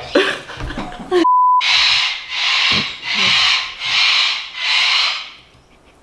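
A short 1 kHz censor bleep over muted audio, then an eclectus parrot giving five harsh, evenly spaced screeches.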